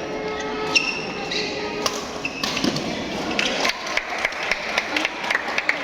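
Sports hall ambience during a match: a crowd chattering, with repeated sharp knocks and short high squeaks from play on the court.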